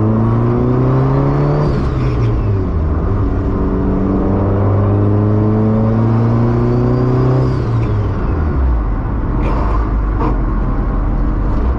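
Honda hatchback's engine heard from inside the cabin, revving up under acceleration, with a gear change about two seconds in, a second pull, then the revs dropping about eight seconds in to a low steady drone with road noise. Two short clicks about ten seconds in.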